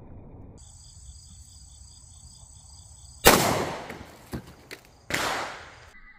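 Two loud pistol shots about two seconds apart, each ringing out and fading over most of a second. Steady high-pitched insects buzz before them, and there are a couple of faint clicks between the shots.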